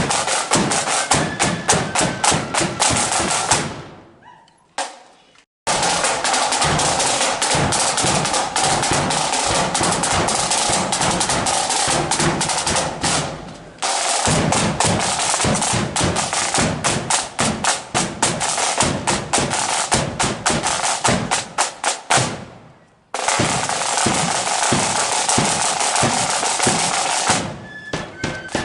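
Marching flute band's drum section playing: rapid snare drum rolls and beatings over steady bass drum strokes, with the flutes mostly silent. The drumming fades and cuts out twice, a few seconds in and again near the end.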